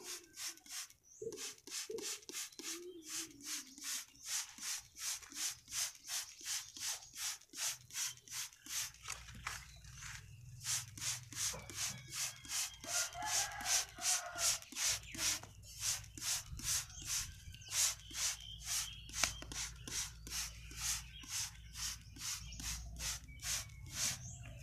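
Plastic trigger spray bottle being pumped over plant leaves: a rapid, regular series of short hissing squirts, about two to three a second.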